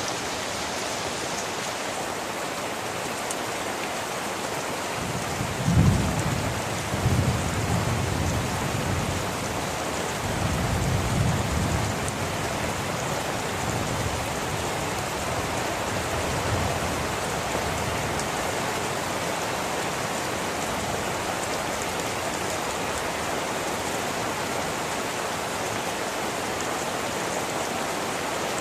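Steady heavy rain falling. A low rumble of thunder rolls through from about five seconds in, peaking early and fading out over several seconds, with a fainter rumble a little later.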